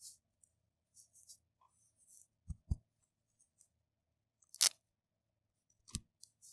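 Small plastic toy parts and packaging being handled: soft crinkles and rustles, two low knocks about two and a half seconds in, a sharp click a little past halfway, and another knock near the end.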